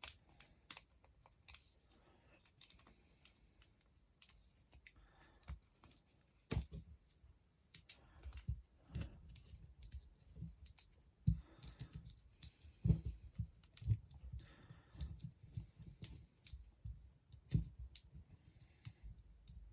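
Action figure being handled as its jacket is put back on: irregular small clicks and knocks of plastic, with a few short rustles.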